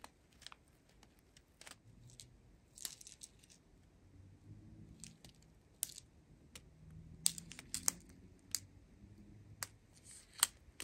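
Small plastic bags of diamond painting drills being handled: scattered sharp clicks and light rattles of the little faceted drills, with soft crinkling of the bags.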